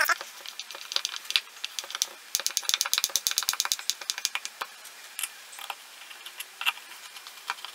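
Hand screwdriver driving screws through a cast-iron bottle opener into a wooden board: scattered clicks and scrapes, with a run of rapid, even clicks a little over two seconds in.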